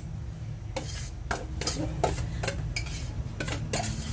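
Kitchen utensils clinking and knocking against cookware: about ten irregular sharp clicks, as when stirring or handling food in a pot, over a steady low hum.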